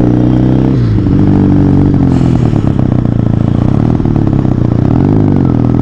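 Benelli TNT 300's parallel-twin engine through an SC Project aftermarket exhaust, ridden at low speed in traffic. The revs fall sharply about a second in, ease down over the next couple of seconds, then dip and pick up again near the end.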